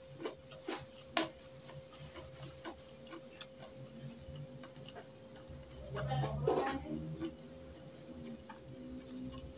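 Crickets chirping steadily, over a few soft clicks and chewing of someone eating by hand from a plate; the eating sounds are loudest about six seconds in.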